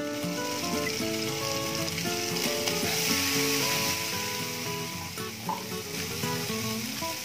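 Chopped meat, onion and tomato sizzling in a frying pan, with a steady hiss that swells from about two seconds in, under background music.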